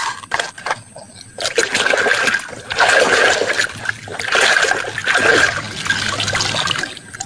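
A muddy toy vehicle being washed by hand in water: splashing and trickling, with a few light clicks of the toy being handled in the first second or so.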